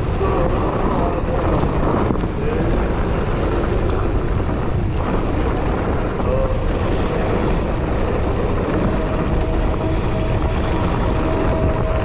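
Steady rush of wind on the microphone with the rumble of a Yeti SB150 mountain bike's tyres rolling over a dirt singletrack.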